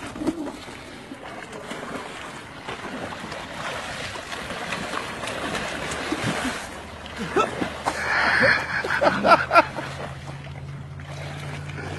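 Splashing and scuffling in shallow pond water as two people wrestle and one is pushed in, with short shouts about two-thirds of the way through and a steady low hum in the last few seconds.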